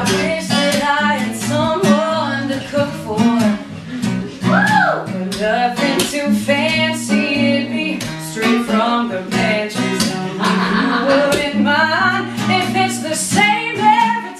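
Acoustic guitar strummed steadily while a woman sings a melody over it.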